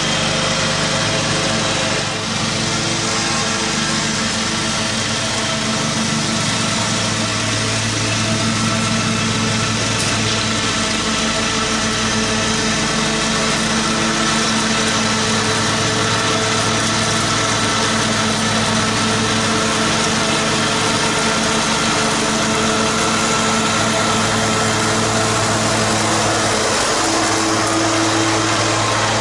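Engine of a 38-inch Cub Cadet riding lawn mower running steadily while mowing, a continuous engine hum with small wavers in pitch.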